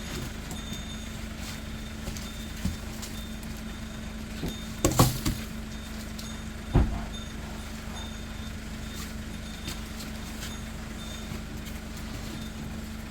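Steady low engine hum with a few sharp knocks, the loudest about five seconds in and another about seven seconds in.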